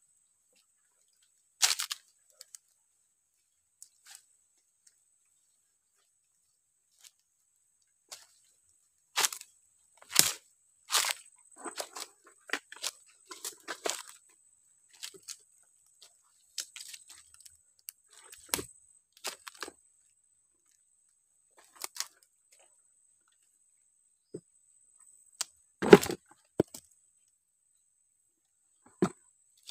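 Dry leaf litter, twigs and dead palm fronds crackling and snapping in scattered bursts as they are disturbed. The snaps are thickest about nine to fifteen seconds in, and the loudest comes about twenty-six seconds in. A faint steady high tone runs underneath.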